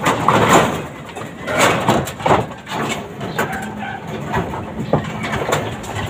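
Young racing pigeons moving about in a wire-mesh loft as they are taken out by hand, with irregular bursts of rustling and clatter.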